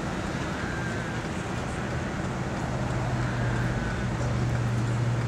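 Engines and road noise of slow-moving highway traffic, a steady hum with a low engine drone that grows louder about halfway through.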